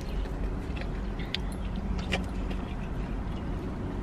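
Steady low hum inside a parked car's cabin, with a few soft clicks and crinkles as food is handled and eaten; the sharpest click comes about two seconds in.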